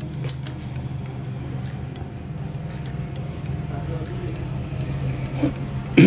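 A steady low mechanical hum runs throughout, with a few faint clicks and taps from a fusion splicer's fibre clamps and lid being handled as fibres are loaded.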